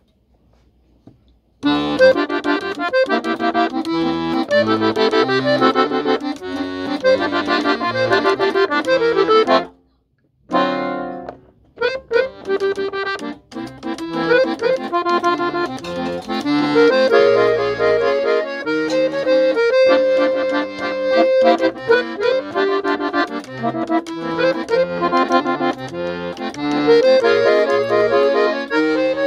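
Giulietti piano accordion playing a lively Brazilian samba tune, a melody on the treble keys over bass-button accompaniment. The playing starts about two seconds in and breaks off briefly around ten seconds in before going on.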